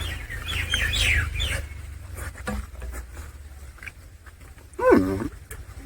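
Eating sounds: scattered chewing and mouth clicks, with faint chirp-like squeaks in the first second and a half. About five seconds in comes one short pitched vocal sound that rises and falls.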